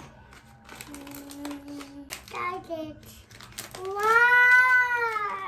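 A young girl singing to herself: a low held hum about a second in, a few sung syllables, then a long loud sung note near the end that rises and falls in pitch. Light clicks of a small cardboard toy box being handled sound between the notes.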